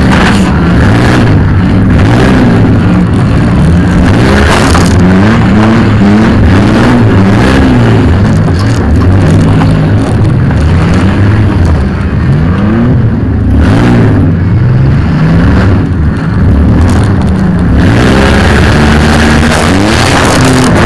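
Demolition derby van's engine heard loud from inside the cab, revving up and down again and again as the van drives around the arena.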